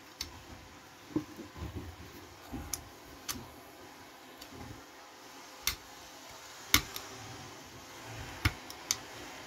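Scattered sharp clicks and light knocks of small diecast metal parts and tools being handled, about seven clicks in all, the loudest a little before the end.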